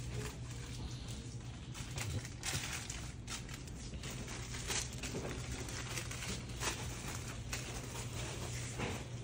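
Supermarket background sound: a steady low hum with frequent short rustles and clicks over it.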